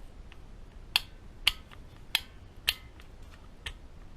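Metal transmission parts clicking and clinking as they are handled, about five sharp clicks at uneven spacing, each with a short ring.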